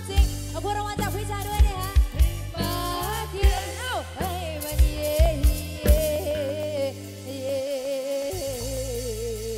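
A woman singing live through a microphone and PA with a Thai rot hae (parade-truck) band, her held notes wavering with vibrato over electric bass and a drum kit. The bass and drums drop out for a moment about three-quarters of the way through, then come back in.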